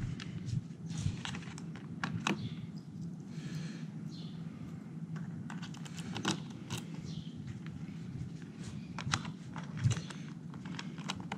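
Small plastic and metal clicks and taps as the covers are pressed onto the Rhino-Rack crossbar feet and a key works the foot locks, bunched about six seconds in and again near the end.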